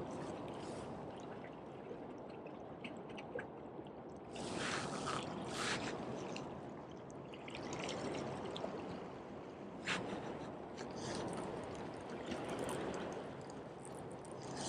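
Small waves lapping against jetty rocks: a steady watery wash, with brief louder splashes about four to six seconds in and again around ten seconds.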